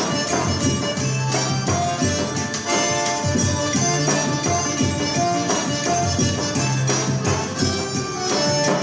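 Forró band playing an instrumental passage with a steady, driving percussion beat and a repeating bass line.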